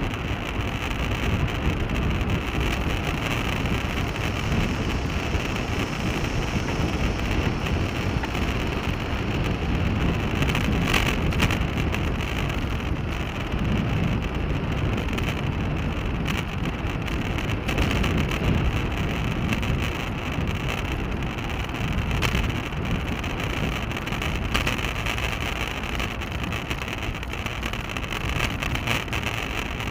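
Steady wind rush and rumble on a bicycle-mounted action camera's microphone during a ride, mixed with tyre and road noise, with a few brief knocks from bumps.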